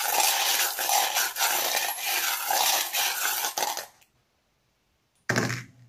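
A handful of small divination charms and dice shaken together in cupped hands, a dense rattle of clicking pieces lasting about four seconds. After a brief pause comes a short clatter as they are cast onto the board.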